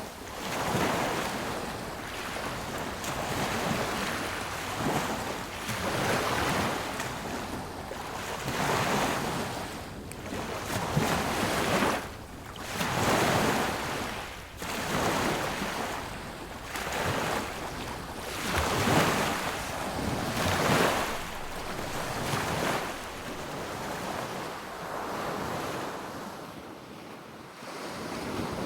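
Sea waves breaking on a beach, each wave swelling and falling away every couple of seconds, easing off for a few seconds near the end.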